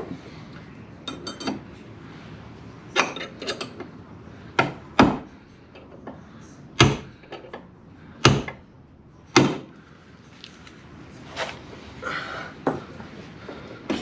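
Hammer blows on the driver-door hinge of a 1999 Jeep Cherokee XJ as the hinge pin is driven: about five hard, sharp strikes a second or so apart in the middle, with lighter taps and clinks before and after.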